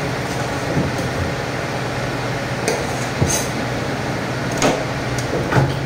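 Butcher's knife cutting through a side of pork on a steel table, with a few sharp knocks and clicks over a steady low hum.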